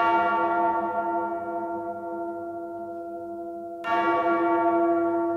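A deep bell struck twice, once at the start and again about four seconds in, each stroke ringing on and slowly dying away. It opens a heavy music track.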